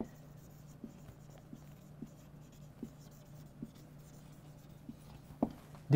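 Marker pen writing on a whiteboard: faint, short scattered strokes of the felt tip, with a low steady hum underneath.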